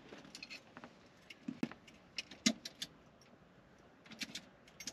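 Light clicks and clinks of small metal parts and screws being handled, scattered irregularly, with a couple of slightly heavier taps near the middle.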